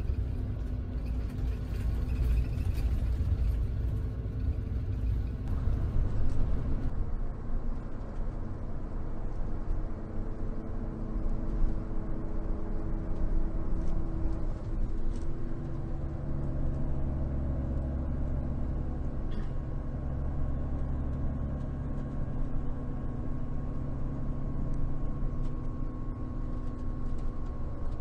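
Steady rumble of a Scania double-decker coach under way, heard from inside the passenger cabin: engine drone and road noise.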